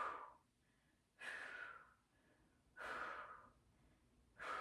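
A woman's short, forceful breaths out through the mouth, four in all, about one every second and a half. They are the paced exhales of someone holding a plank-type core exercise under effort.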